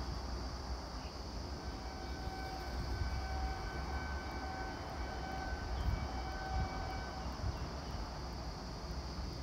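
Horn of an approaching Vande Bharat Express electric train, heard at a distance, sounding a series of short blasts on one steady pitch that start about two seconds in and stop about seven seconds in. Under it runs a steady low rumble and a steady high insect buzz.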